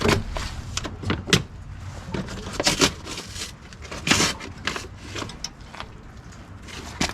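Scattered clicks, knocks and scrapes from hands and tools working on a pickup truck's door, with several sharper knocks and quieter handling between them.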